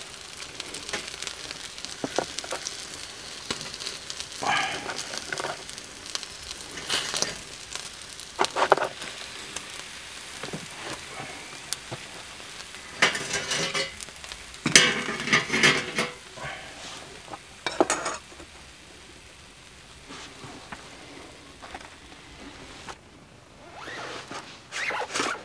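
Chicken pieces sizzling on a small charcoal grill, with short scrapes and knocks now and then as they are lifted off the grate onto a plate. The handling noises stop after about 19 seconds, leaving a quieter hiss.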